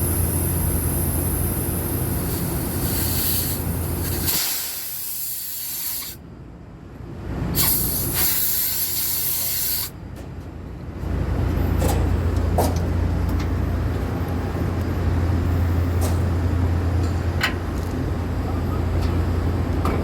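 Pressurised gas hissing during work on the refrigerant lines of an air-conditioning unit, cutting out briefly twice, over a low steady hum, with a few sharp clicks later on.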